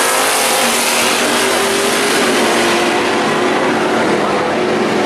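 Two classic muscle cars, a Mercury and an Oldsmobile, racing down a drag strip at full throttle, their engines revving up through the gears. The sound grows duller after about three seconds as the cars pull away down the track.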